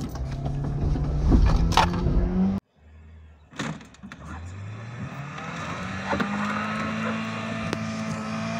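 Ford Mondeo Mk1 16V Zetec engine pulling under load as the car pushes the dead Ford Probe, whose engine has seized, to try to bump-start it. The note rises as the engine revs up, breaks off briefly about two and a half seconds in, then climbs again and holds steady.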